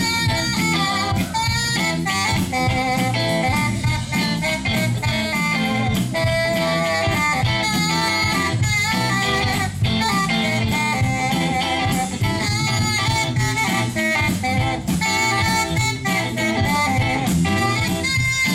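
Live rock and roll band playing an instrumental break with a steady beat, guitar and saxophone.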